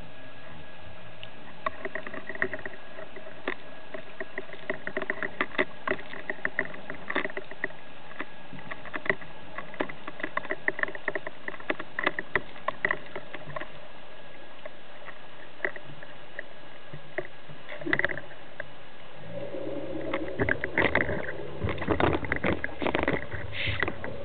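Underwater sound through a camera housing: scattered sharp clicks and crackles. Near the end, as the diver reaches the surface, a louder, denser stretch of bubbling and splashing with a steady low hum underneath.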